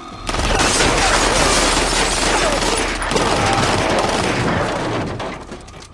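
MAC-10 submachine gun firing on full auto in a film sound mix. One long, rapid burst starts about a quarter second in, breaks off briefly around three seconds, then resumes and dies away near the end.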